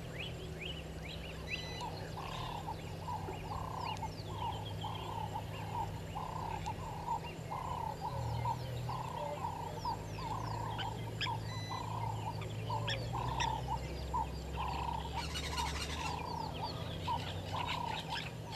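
Red-billed hornbill calling a long, even series of short notes, about two a second, with other birds chirping higher and a brief high rattle near the end.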